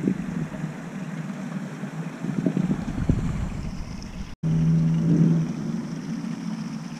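Wind buffeting the camera's microphone, a gusting low rumble, cut off by a brief dropout a little over four seconds in, after which a short steady hum sits over the rumble.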